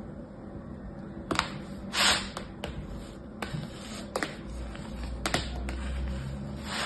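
Hands squeezing and crumbling kinetic sand in a plastic tray: a series of short, crisp crackles and crunches, the loudest about two seconds in.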